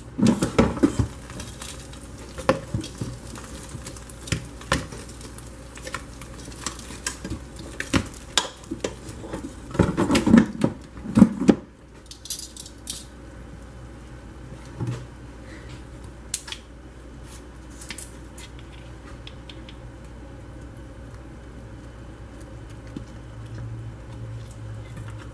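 Metal tongs clicking and knocking against the air fryer basket and a plastic bowl as fried chicken drumsticks are lifted across. The knocks come in a quick run for about the first twelve seconds, loudest just before they stop, then only a few scattered ticks.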